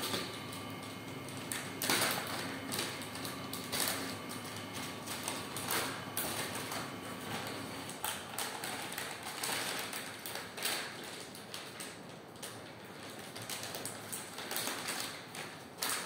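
Foil reagent pouch handled and torn open with gloved hands: irregular crinkling and crackling throughout, with a faint steady hum under the first half.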